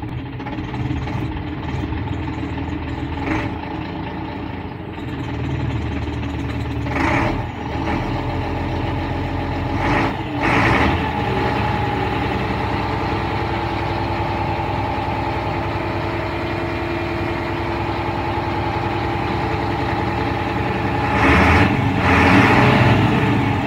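Scania 93M truck's 280 hp turbo-intercooled diesel engine, a 9-litre inline six, running steadily just after a start. It is raised from idle to a held fast idle of about 1,500 rpm and climbs to about 1,800 rpm near the end, with a few short hisses partway through.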